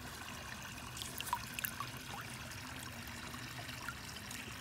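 Shallow creek water trickling steadily, with a few small splashes and drips about a second in as a spoon is rinsed in it by hand.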